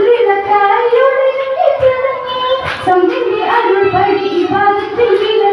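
A girl singing a Mappila song (mappilappattu) solo into a microphone, a melodic line of long held notes that bend and waver.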